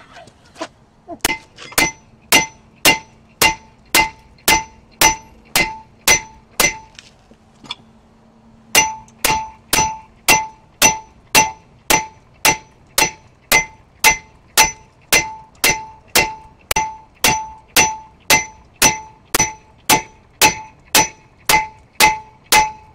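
Hammer blows on a rust-seized front brake rotor of a 2002 Nissan Altima, struck in steady full swings about two a second, each ringing with a metallic clang. The hammering stops for about two seconds a third of the way in, then goes on.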